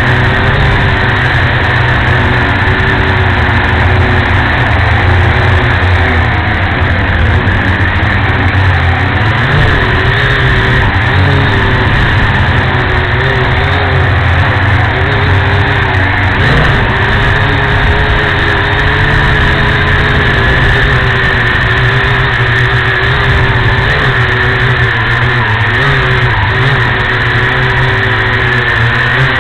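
WLtoys Q303A quadcopter's motors and propellers buzzing steadily in flight, heard from its own onboard camera, with a heavy rumble of vibration and wind under the whine. The whine's pitch wavers up and down as the throttle changes.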